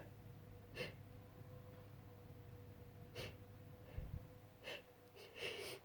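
Faint, short breaths and sniffs, four or five of them a second or two apart, from a person on the verge of a sneeze that is stuck and won't come out.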